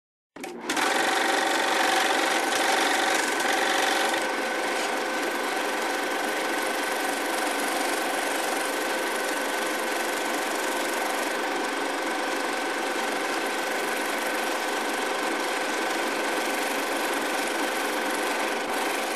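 A steady mechanical whirring with a hiss and a few constant tones in it, fading out at the end.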